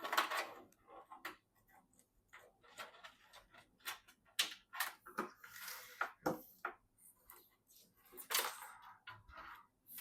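Irregular clicks, taps and brief rustling and scraping of hardware and plastic parts being handled while a desktop PC is assembled.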